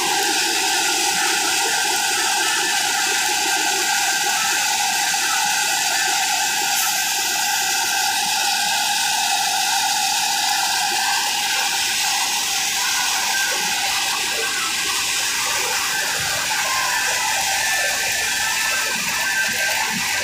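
Tractor-driven flour mill (atta chakki) running, a steady rushing grind.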